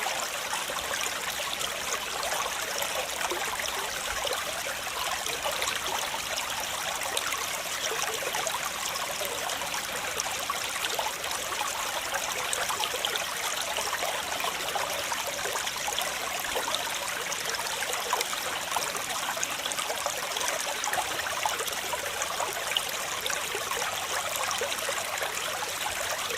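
Flowing water: a steady, unbroken rush of a stream, with most of its energy in the hiss rather than a low rumble.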